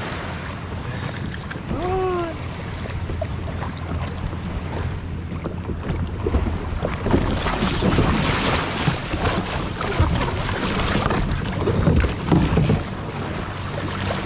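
Wind on the microphone and lapping water around a plastic sit-on-top kayak, with a faint low steady hum underneath and a short call about two seconds in. From about seven seconds in there are repeated knocks, scrapes and clatter as a long-tailed macaque climbs about on the kayak's deck and rummages through the gear.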